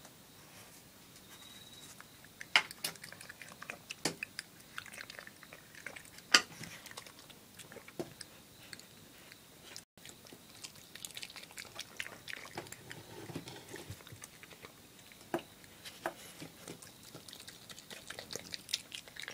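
Japanese badger chewing and biting banana slices, a run of small irregular mouth clicks and smacks, with two louder sharp clicks about two and a half and six and a half seconds in.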